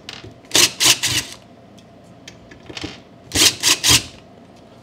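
DeWalt 20V cordless driver running in short bursts, backing out the loosely fastened screws of a small engine's sheet-metal breather cover plate. Two groups of about three quick whirs, one about half a second in and one near the end.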